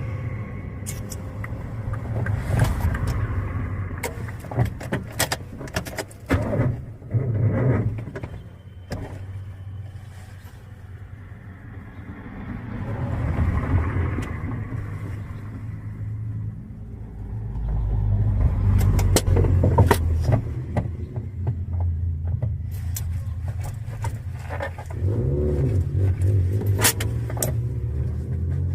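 A 1994 Honda Civic's carbureted engine on a hard cold start, running unevenly and being revved in several swells that rise and fall, with sharp clicks and knocks in between.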